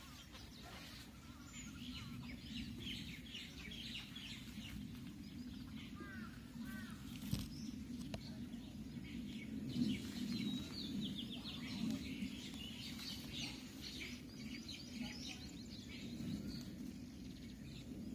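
Many birds chirping and calling in quick overlapping notes, over a low steady background rumble.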